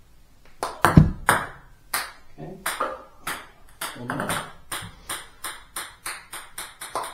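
Table tennis serve: sharp clicks of the bat on the plastic ball and the ball striking the table, the loudest about a second in. This is followed by a long run of light ball bounces, about three a second, as the ball keeps bouncing.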